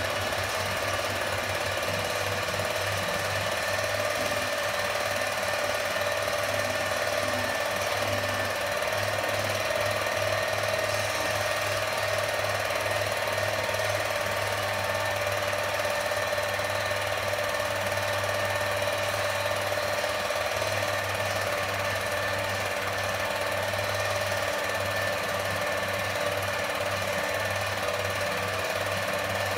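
8mm cine projector running, a steady, rapid mechanical clatter of the film transport with a constant whine over it.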